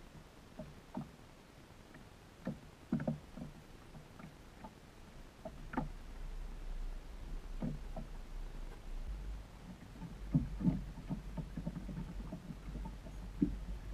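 Small ripples lapping and knocking against the hull of a Gheenoe skiff drifting in shallow water: irregular light slaps that come more often in the second half, over a low rumble.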